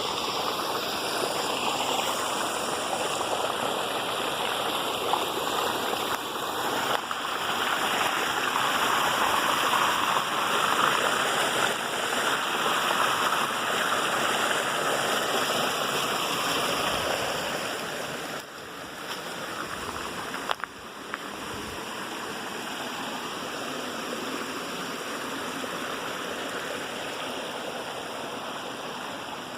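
Water pouring down a cascade, a steady rushing noise that becomes quieter about two-thirds of the way through.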